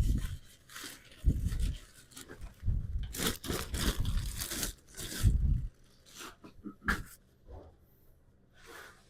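A cardboard box and the plastic packaging of an inflatable mattress being torn open and handled: irregular tearing and crunching with some low bumps, thinning out to a few faint rustles and clicks after about six seconds.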